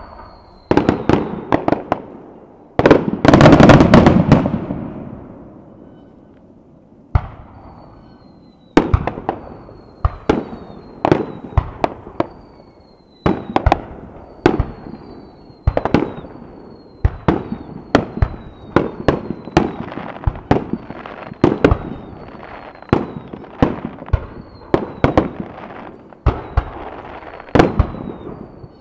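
Aerial firework shells launching and bursting: sharp bangs with echoing tails, one large burst a few seconds in that dies away slowly, then a steady run of bangs about one a second. Many bangs are followed by a short falling whistle.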